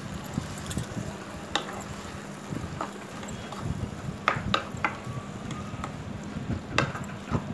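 Spatula stirring grated mango in a nonstick pan, with scattered sharp clicks and taps of the spatula against the pan, a few in quick succession about halfway through.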